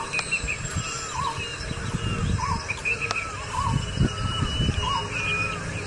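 A bird calls a short chirped phrase over and over, every second or so, with higher chirps mixed in. Under it runs a low, uneven rustling of handling noise as the plant's stems and leaves are pushed about.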